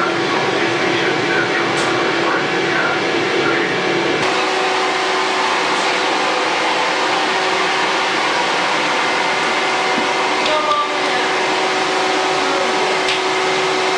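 Steady, loud mechanical hum with a constant drone tone that steps slightly higher about four seconds in. Faint voices are heard underneath.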